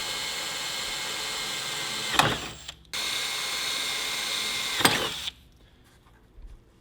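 A handheld power tool's motor running at a steady high-pitched whine in two runs, each stopping with a sharp click and a quick falling whine as it winds down.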